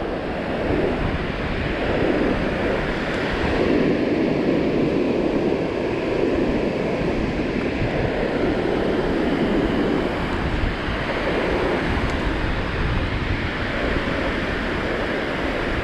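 Ocean surf breaking and washing up the beach, swelling and easing every few seconds, with wind buffeting the microphone in a low rumble underneath.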